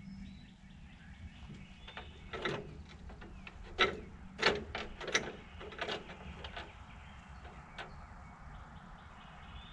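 Hand tools knocking and clicking against the skidder's fittings as its diesel fuel line is being worked on: a cluster of sharp knocks in the middle, the two loudest close together, and a single click near the end.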